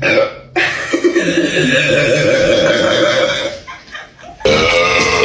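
A person burping after chugging a carbonated Sprite: one long, drawn-out burp of about three seconds, then a second one starting near the end.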